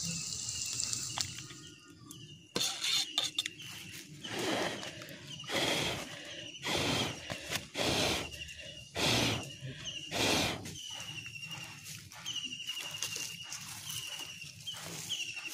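A small creature's short, high chirping call repeats about once or twice a second. Between about four and eleven seconds in, loud bursts of rushing noise, each about half a second long, come roughly every second and a half.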